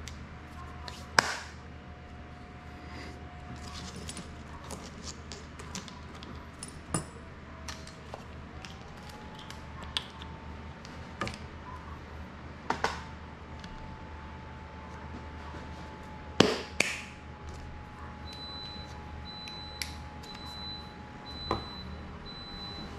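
Scattered clicks and taps of small drone parts, screws and hand tools being handled on a desk during repair work, two of them sharper and louder. Near the end a high beep repeats about once a second.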